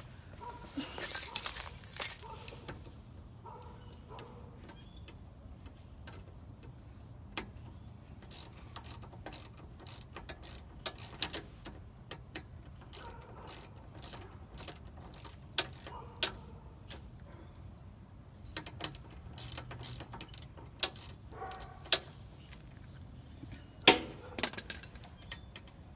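Metal hand tools clicking and clanking during brake work on a car, a string of sharp separate clicks with a louder clattering burst about a second in and another near the end.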